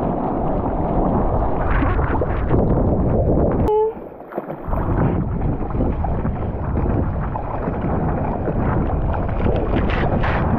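Water rushing and splashing past a surfboard riding a wave, with wind buffeting the microphone of a camera mounted on the board's nose. About four seconds in there is a sharp click and the sound drops away briefly before the rushing returns.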